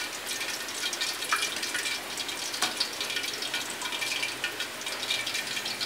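Battered mairo fish frying in hot oil in a wok: a steady crackling sizzle with many small pops.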